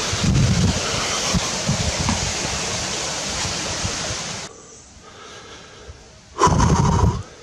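Mountain stream rushing close by, with low bumps on the microphone. The sound cuts off abruptly about four and a half seconds in, leaving a much quieter trail, and near the end comes a short, loud breath-like puff.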